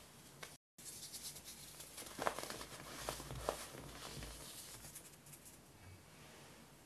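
Clumps of baking soda crumbling and crunching between the fingers while the fine powder sifts and pours through them in a soft crackly rustle. Two sharp crunches stand out in the middle. The sound cuts out for a moment just after the start and grows quieter near the end.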